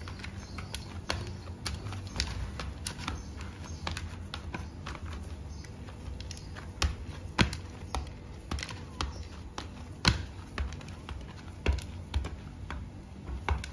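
Hands kneading roti dough in a plastic bowl: irregular soft slaps and clicks as the dough is pressed, folded and turned against the bowl, a few louder slaps among them.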